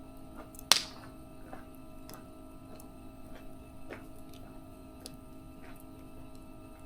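Wood fire crackling: irregular small pops and ticks, with one loud, sharp snap under a second in, over a faint steady hum.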